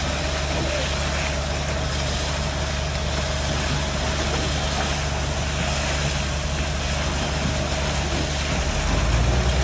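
Concrete pump truck's diesel engine running steadily while it pumps concrete through the boom hose, with a thin steady tone over the low rumble. The rumble grows louder about nine seconds in.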